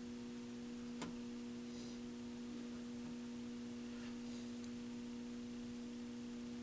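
Low, steady electrical hum with one faint click about a second in.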